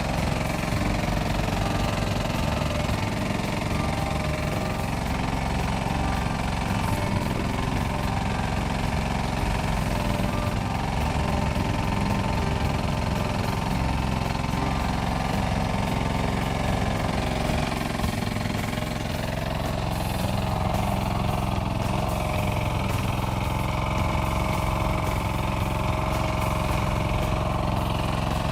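Kubota mini excavator's diesel engine running steadily, with a slight change in pitch about two thirds of the way through.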